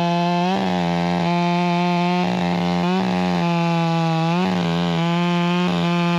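Two-stroke chainsaw at full throttle cutting through wood. The engine note dips briefly several times as the chain bites in under load.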